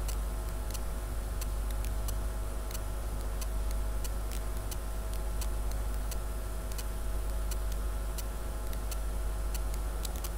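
Faint, fairly regular ticking, about two ticks a second, over a steady low hum.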